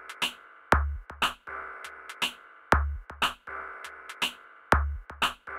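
Electronic outro music: a drum-machine beat with a heavy kick about every two seconds and lighter hits between, under a sustained synth chord.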